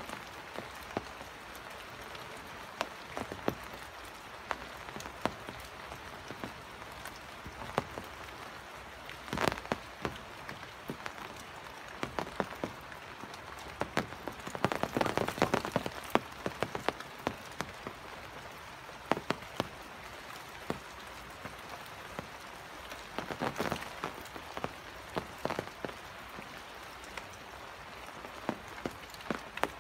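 Steady rain with many sharp drops pattering close by, thickening into denser spells of drops about halfway through and again near the end.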